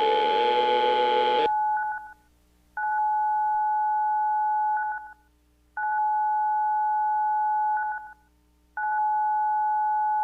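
Music cuts off about a second and a half in. Then a steady electronic alert tone of two pitches sounds three times, each about two and a half seconds long, with short breaks and a brief crackle at the end of each. It leads into a spoof news bulletin.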